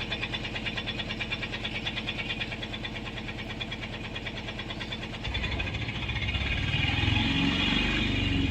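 Mahindra Jeeto BS6 diesel engine running at a steady idle. About five seconds in it picks up and runs louder.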